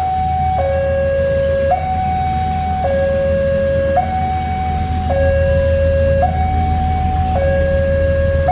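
Electronic two-tone warning alarm alternating between a higher and a lower pitch, each note held about a second. Under it runs the steady low rumble of a stopped Prameks diesel multiple unit idling.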